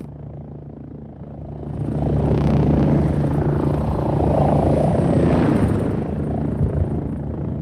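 Helicopter in flight: steady rotor and engine noise that swells to full loudness about two seconds in, holds, and eases slightly near the end.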